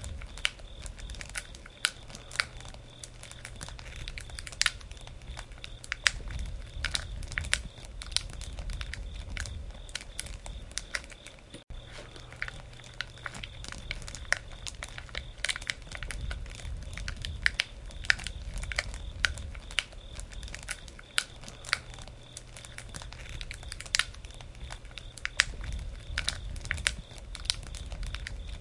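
Wood campfire burning, crackling with frequent sharp pops over a low rumble of flames. The sound drops out for an instant a little before the middle.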